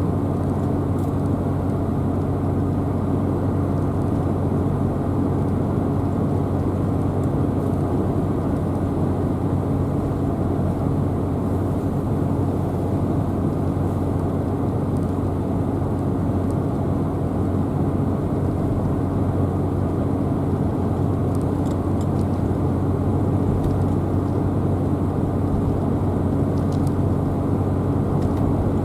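Steady drone of a car driving along, engine and tyre noise with a low hum and no change in speed.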